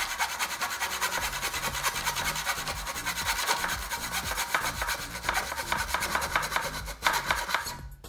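Small hacksaw sawing back and forth through a wooden dowel, an even run of rasping strokes that stops just before the end. The dowel is glued into a pocket hole in a pine board and is being cut off at the surface.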